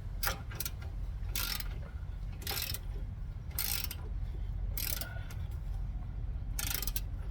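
Hand ratchet wrench tightening a drag-link castle nut on a truck's front steering, a short rasping stroke of clicks about once a second over a steady low hum.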